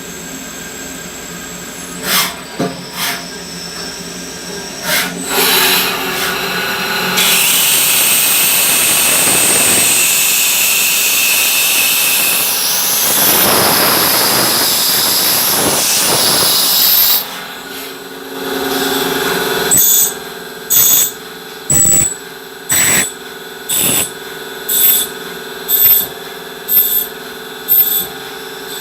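CNC machine cutting a brass part: the machine runs with a steady hum, a loud high-pitched cutting squeal for about ten seconds, then a string of short bursts about once a second.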